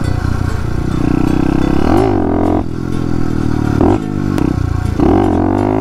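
An SSR 110cc pit bike's single-cylinder four-stroke engine, fitted with a racing carburettor and velocity stack, running hard under throttle. Its revs climb and drop back several times.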